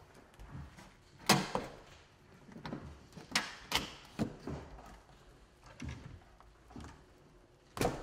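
Handling noise from a wooden observation beehive: a series of irregular knocks and clicks, the loudest about a second in, as its frames and panels are moved by hand.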